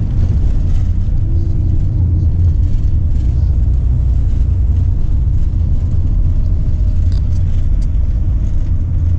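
Campervan driving along, heard from inside the cab: a steady low rumble of engine and tyres on the road.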